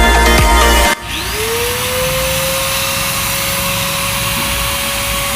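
Music cuts off about a second in. Then a 6-100 angle grinder with freshly replaced bearings starts up: its whine rises quickly in pitch, then settles into a steady tone as it runs free at full speed.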